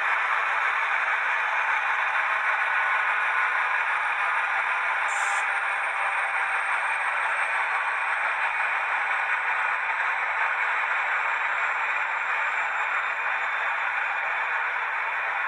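Model diesel locomotive's sound decoder playing a diesel prime mover running steadily through its small speaker, thin and without bass.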